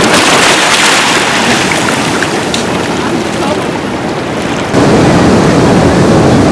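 Seawater washing over rocks with a steady hiss. About three quarters of the way in it changes abruptly to heavier, deeper ocean surf breaking on a rocky shore.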